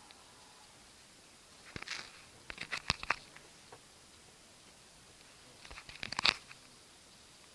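A person snoring: two rattling, crackly snore breaths about four seconds apart.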